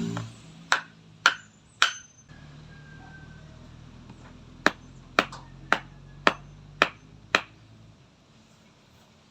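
Hammer striking in a steady rhythm, about two blows a second: three blows, a pause of a couple of seconds, then six more, over a faint low hum. This is repair work on a wind-collapsed structure.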